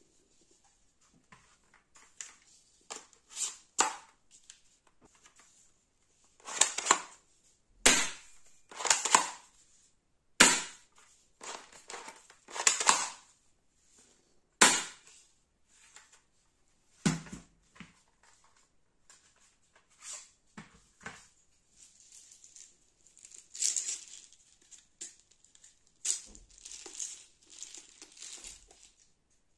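Hard plastic clicks, snaps and rattles of a cheap toy Uzi BB gun being handled, as its magazine and action are worked: a couple of dozen separate sharp clicks and short rattles with gaps between them. Near the end there is a softer run of rustling and rattling as a plastic container of BBs is handled.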